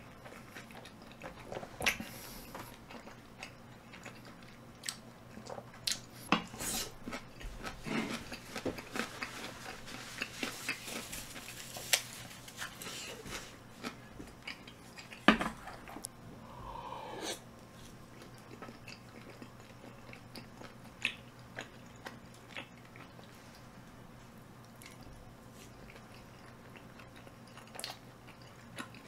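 Close-up eating sounds: chewing a mouthful of tteokbokki and chicken, with scattered sharp clicks and scrapes of a wooden spoon against a ceramic dish, busiest a little before the middle.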